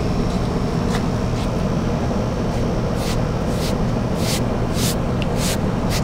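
Hand swiping across an ash-covered outdoor chair arm, five quick rubbing strokes starting about halfway through, over a steady low rumble.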